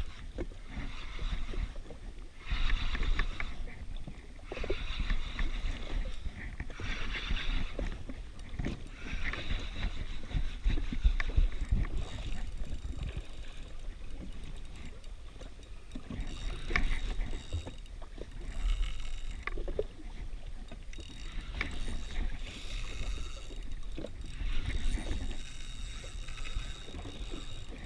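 Small waves slapping and splashing against the hull of a jet ski drifting at sea, in irregular bursts every second or two, over a low rumble of wind on the microphone.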